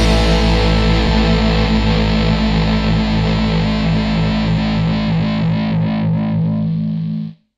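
Rock music: a distorted electric guitar chord held and ringing out, fading a little, then cut off abruptly about seven seconds in.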